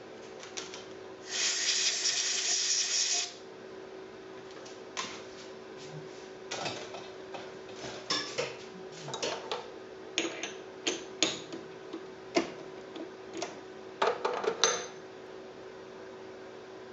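Steel parts and hand tools clinking and knocking as they are handled at the lathe, a string of sharp metallic taps, after a hiss about a second in that lasts two seconds. A faint steady hum lies underneath.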